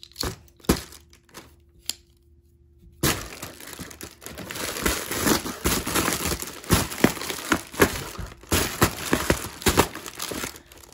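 Scissors cutting open a plastic padded mailer, the plastic crinkling and crackling with many sharp snips. A few handling taps come first, then continuous crinkling from about three seconds in.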